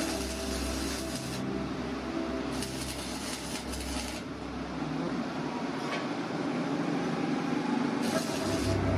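Electric arc welding on steel: the welding arc crackling and sizzling, the hiss growing stronger and weaker in patches as the bead is laid.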